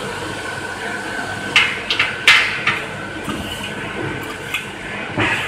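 Metal scoop knocking and scraping against a stainless-steel cooling tray while caramel-coated mushroom popcorn is scooped and spread, with a cluster of sharp clanks around two seconds in and another near the end, over a steady machine hum.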